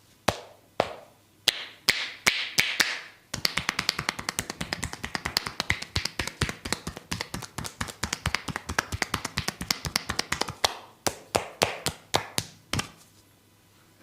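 Percussive hand massage: a barber's hands slapping and tapping on the client's body. A few sharp separate smacks come first, then a fast, even run of taps for about seven seconds, then several more spaced smacks near the end.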